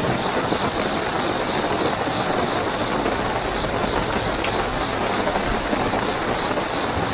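Steady heavy rain, with crickets chirring continuously in a high, even tone above it.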